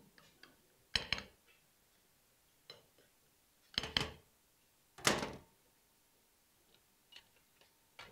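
Chef's knife cutting through a potato omelette and knocking against the ceramic plate beneath: a few sharp clicks and knocks with quiet between them, the loudest about a second in and around four and five seconds in.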